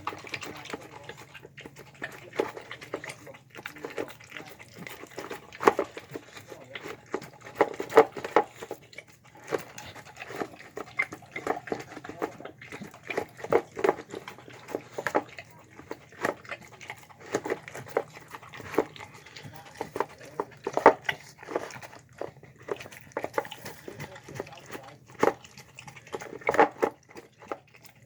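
A dog eating from a bowl of chicken, egg and rice: irregular wet chomping and smacking of the jaws, with the odd louder clack, for the whole stretch.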